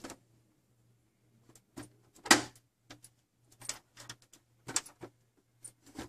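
Front door of an HP ProLiant MicroServer N54L being pushed shut by hand: a scattering of short clicks and knocks, the loudest about two seconds in.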